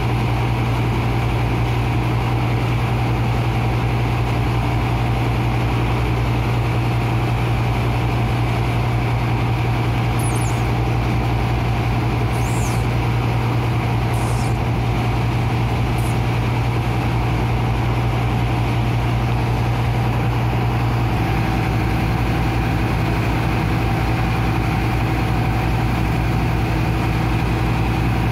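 Engine of a sand-dredging water pump running steadily with a strong low hum, over the rush of water gushing from the discharge pipe and the hose jet. A few short high squeaks come around the middle.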